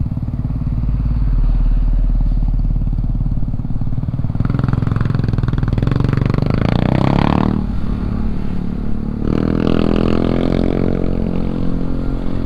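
Honda CB150X's single-cylinder engine running under way over a low wind rumble. About four seconds in it revs up with rising pitch, breaks off briefly for a gear change, then climbs again near the end.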